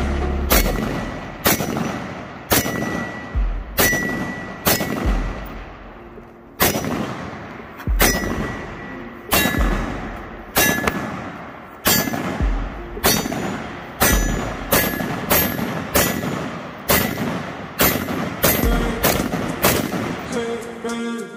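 Short-barreled AR-15 carbine of the Mk18 type fired in slow, steady semi-automatic fire: about thirty sharp shots, roughly one to two a second, each trailing off quickly, with a brief high ring after several of them.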